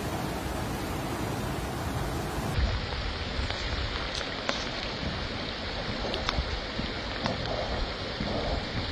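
Steady rush of floodwater with wind on the microphone. About two and a half seconds in the recording changes, and scattered sharp ticks sound over the water noise.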